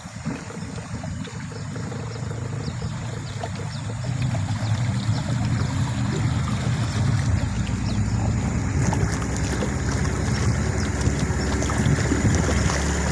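Motorboat engine running on a river, getting louder over the first few seconds and then running steadily, with the hiss of water and wind over it.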